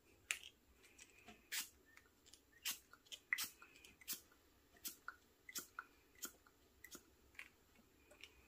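Faint, irregular small clicks and taps, about two a second, from a plastic syringe and a small ink bottle being handled while spattering fountain pen ink.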